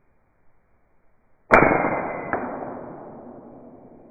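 Slowed-down replay of a .25-calibre EDgun Matador air rifle shot: one sudden report about a second and a half in that dies away slowly over about two seconds, with a second smaller crack under a second after it.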